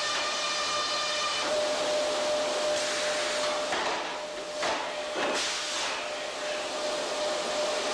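Sawmill log-deck machinery running with a loud, steady hissing din and a constant hum. A whine fades out about a second and a half in, and three short blasts of hissing noise come in the middle.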